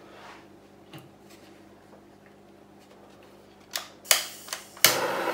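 A hand-held butane torch clicks a couple of times near the end, then lights with a steady hiss, just before the end, to be played over the wet acrylic pour to bring up cells from the dimethicone.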